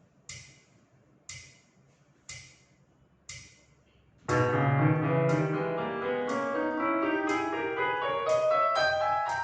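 Four sharp clicks, one a second, like a count-in. Then piano music starts about four seconds in, its notes climbing steadily higher while the clicks keep the beat.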